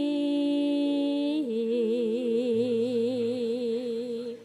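Female sinden singing a long held note into a microphone, then dropping to a lower note about a second and a half in and holding it with a wavering vibrato until it fades just before the end.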